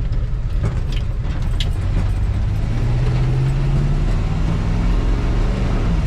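1973 Chevy C20 pickup heard from inside its bare, partly stripped cab while accelerating onto the road: a steady engine and road rumble with the engine note rising, and three short rattling knocks in the first couple of seconds.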